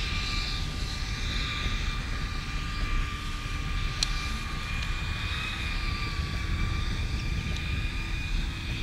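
Wind rumbling on the microphone, over a steady, slightly wavering high whine of a motor. A single sharp click about four seconds in.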